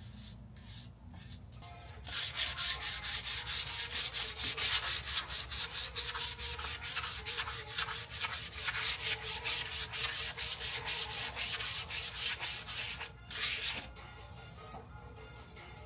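Sandpaper rubbed back and forth over the primed metal of a car's engine bay, in quick, even strokes about four or five a second. The sanding gets going about two seconds in and stops briefly near the end. The primer is being sanded smooth as the last step before paint.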